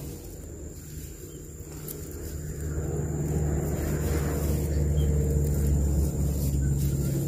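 A motor vehicle's engine running, a low rumble that grows louder from about two seconds in and holds steady.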